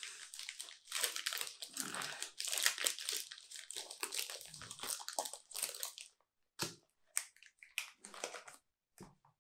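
Kit Kat Gold wrapper being torn open and crinkled by hand: dense crackling rustle for about six seconds, then a few short scattered rustles as the bar is pulled out.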